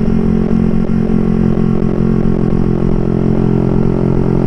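Yamaha R15 v3's single-cylinder engine running through an open (straight-through) exhaust, held at steady revs while riding. Beneath it is a rough low rumble of wind and road noise.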